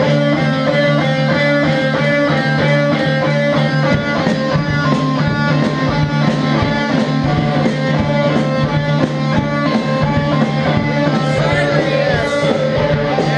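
Rock band playing live and loud: electric guitars strumming sustained chords over drums, with a cymbal struck on a steady beat.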